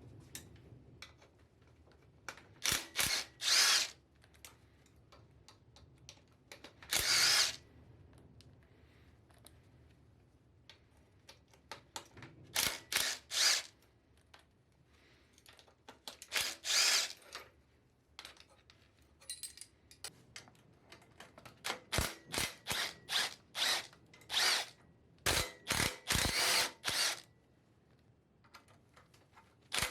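Power tool run in short bursts, mostly in quick groups of two to five, with pauses of a few seconds between groups.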